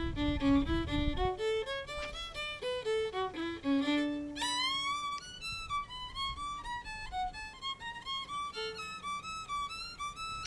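Background music: a fiddle playing a quick melody of short stepping notes.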